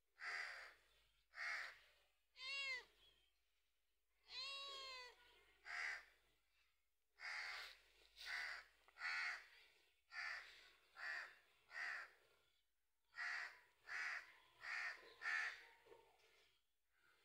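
A white long-haired cat meowing over and over, about fifteen short meows spaced roughly a second apart, some drawn out with a rising-then-falling pitch.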